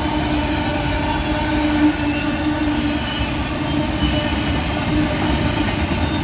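BNSF auto carrier freight train of autorack cars rolling past at speed: a steady rush of wheels on rail with a steady low tone running under it.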